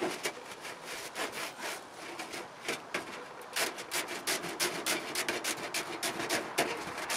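Aluminum window-screen mesh rubbed and pressed flat against a plastic tabletop, then cut with aviation tin snips: from about three and a half seconds in, a quick run of short metallic snips.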